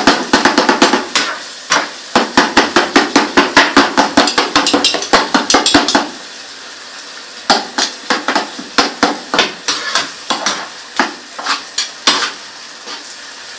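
Metal spoon clacking against a cooking pan as the goat-offal kata kat mixture is stirred, over a steady sizzle. Quick strikes at about five a second for the first six seconds, a short pause, then slower strikes at about two a second.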